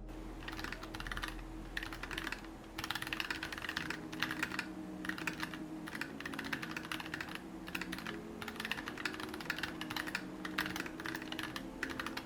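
Typing on a NuPhy Air75 low-profile mechanical keyboard with Gateron Brown switches: a fast, continuous patter of key clicks with a few short pauses.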